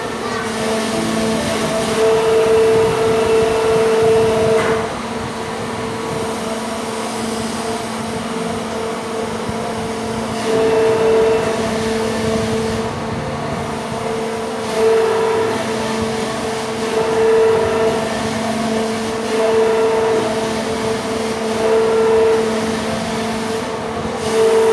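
Kiddie airplane ride running as it rotates, a steady mechanical hum from its drive that swells louder every few seconds.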